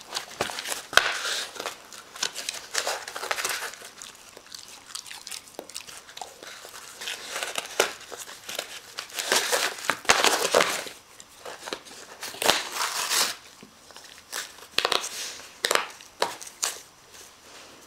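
A dog tearing and chewing cardboard and paper: irregular bursts of crinkling and ripping with sharp crackles, separated by quieter pauses.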